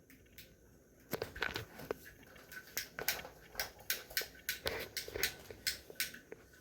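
Irregular small clicks and taps of plastic fidget toys being handled, several a second, starting about a second in.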